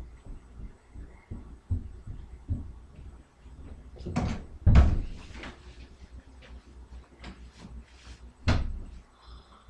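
Knocks and thumps of doors being opened and shut in a house: small taps throughout, a loud double thud about halfway through and another near the end.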